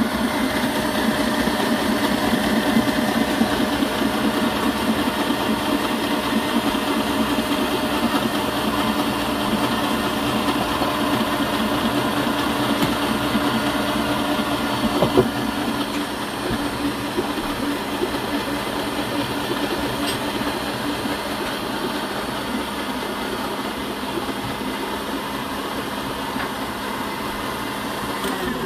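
KitchenAid stand mixer's motor running steadily with its wire whisk beating egg whites as hot sugar syrup is poured in, the whipping stage of an Italian meringue. A single brief knock about halfway through.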